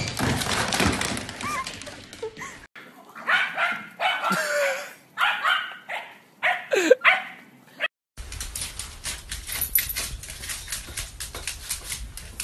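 Dogs barking in a run of short, sharp barks, with a couple of yelps that slide in pitch. The background changes abruptly twice.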